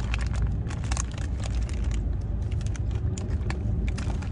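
Steady low rumble inside a car's cabin, with many small sharp clicks and crunches of chewing close to the microphone.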